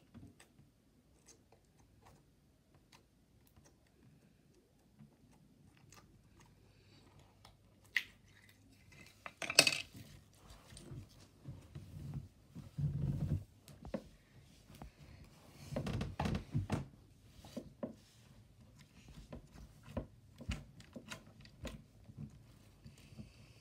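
Slime being squeezed and kneaded by hand and pressed onto a wooden tabletop: scattered small clicks and pops, with a few louder runs of squishing partway through.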